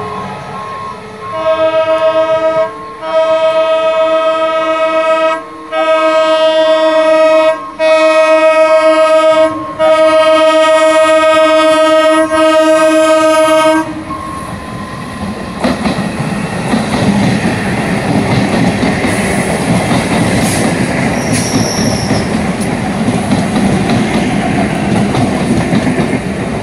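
Electric multiple unit (EMU) local train's horn sounding about six long blasts in a row, then the rumble and wheel clatter of an EMU train passing close by.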